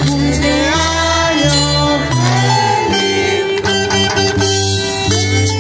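Music led by guitar over a bass line that moves from note to note every half second or so, playing steadily and loud.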